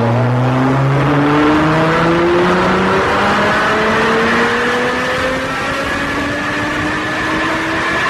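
GT sports car engine accelerating under load, its pitch climbing slowly and steadily as the revs rise.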